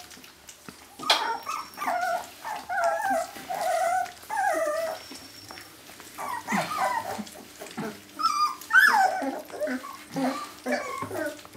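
Jämthund puppies whining and yipping in runs of short, wavering high calls, with a brief pause about five seconds in before the calls start again.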